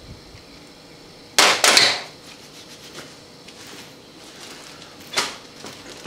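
Metal clattering as hand tools and loose bolts are set down on the workbench: two close, loud clatters about a second and a half in, and a shorter one near the end.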